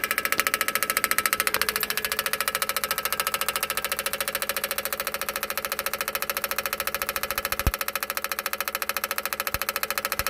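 Electric fuel pump on a diesel mower's fuel system ticking rapidly and evenly while priming the lines, with a sharper click about three quarters of the way through.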